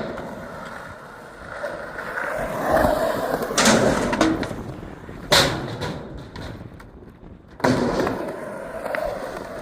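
Skateboard wheels rolling on pavement, with three sharp clacks of the board hitting the ground about three and a half, five and a half and seven and a half seconds in.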